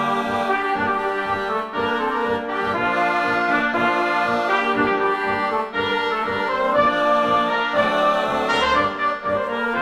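Background music led by brass instruments, with a steady pulse in the bass.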